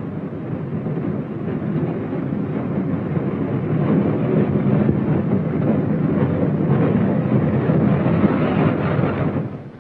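Freight train rolling past with a steady rumble that builds over the first few seconds, holds, and falls away near the end.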